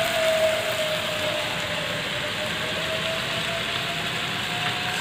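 Mixed vegetables sizzling steadily in oil in a steel wok, with a thin, steady whine running under the sizzle.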